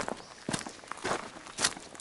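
Footsteps of a hiker walking at an even pace, about two steps a second.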